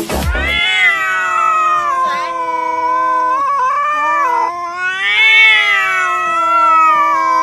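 A cat yowling: long, drawn-out caterwauling calls that run one into the next, the pitch wavering and rising and falling, with short breaks around the middle.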